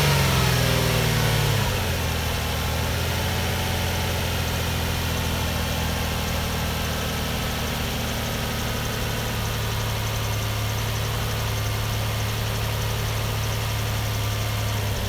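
2005 Nissan Murano's 3.5-litre V6 engine running, its revs falling over the first second or two and then settling into a steady idle. It now runs after a fusible link replacement cured its no-crank, no-start fault.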